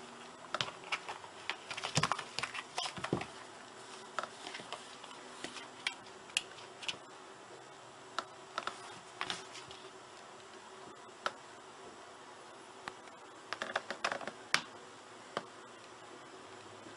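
Soft scuffs and sharp clicks of a cat wrestling and biting a fabric slipper on carpet, with a flurry over the first three seconds and another about fourteen seconds in, over a faint steady hum.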